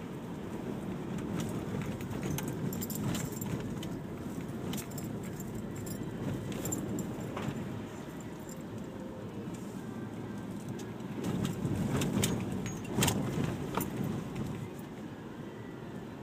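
Vehicle running with a steady low rumble, with light metallic jingling and clinking scattered through, louder about three-quarters of the way through.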